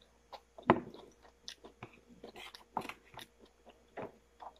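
Close-up chewing and mouth sounds of a person eating food by hand: irregular short clicks, the loudest a little under a second in.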